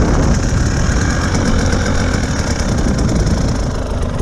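Enduro dirt bike engine running while riding over a rough dirt track, easing off slightly near the end.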